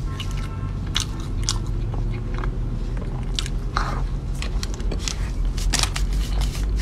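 Close-up chewing and crunching of a crisp cookie, with many sharp, irregular crunches over a steady low hum.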